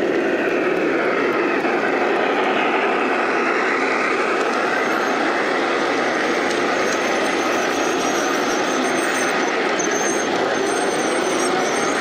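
G scale model trains running past: the steady rumble of wheels on the track and the electric drive, with a faint whine that glides up and down in the first few seconds.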